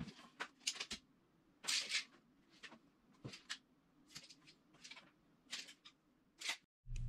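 Light, scattered clicks and scrapes of a steel tape measure and a pencil being handled against a wooden frame while measuring and marking. There is one longer scrape a little under two seconds in. A steady low hum cuts in right at the end.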